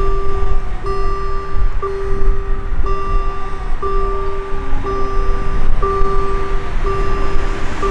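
Level crossing's electronic warning tone sounding in a steady run of long beeps, about one a second, the signal that the half barriers are lowering across the road. A low rumble runs underneath.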